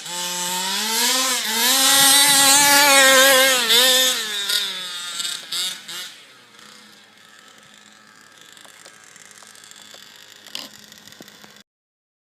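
Small two-stroke petrol engine of a 1/5-scale RC buggy revving. It climbs in pitch, holds high and loud for a few seconds, then drops back and dies away about six seconds in. A faint steady background and one sharp click follow.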